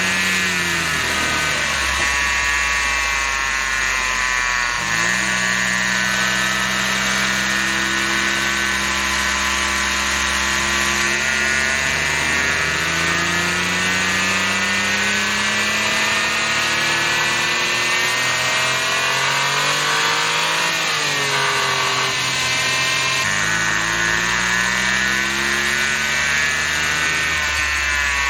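Honda S660 CVT transmission whining and droning while driving, over the car's running noise. Several whining tones glide up and down together, with sudden steps about 5 s and 23 s in. The drivetrain fault behind it led to replacing the CVT assembly; the owner is unsure whether it comes from faulty pulleys or from the differential.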